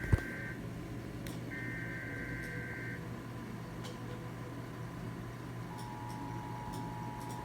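Emergency Alert System end-of-message data bursts closing a weekly test: the tail of one warbling two-tone digital burst, then one more burst about a second and a half long. A click at the start, a low steady hum underneath, and a steady tone comes in near the end.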